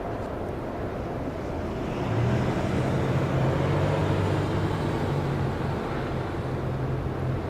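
A vehicle's low engine hum, growing louder about two seconds in, over a steady wash of street noise.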